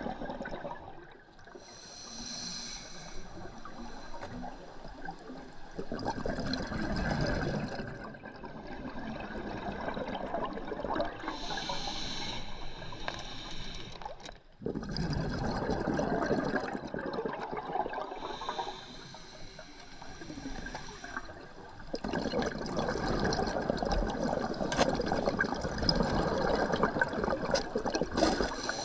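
Scuba diver breathing through a regulator underwater, several slow breaths: a short hiss on each inhale, then long bubbling as each exhale vents.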